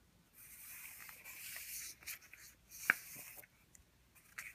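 Felt-tip marker scratching across paper in two stretches, with a sharp tick about three seconds in; faint.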